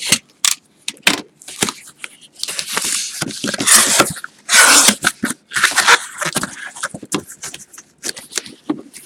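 Cardboard shipping box being slit open with a utility knife and its flaps pulled apart: scraping and tearing cardboard with a few loud rips in the middle.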